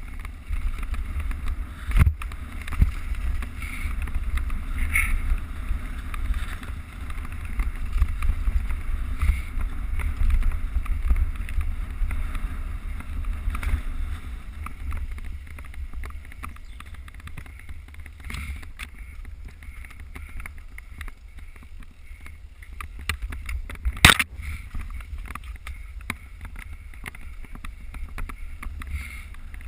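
Mountain bike ridden over a trail, heard through a GoPro: a steady rumble of wind on the microphone with rattles and sharp knocks from bumps, the loudest about 24 seconds in.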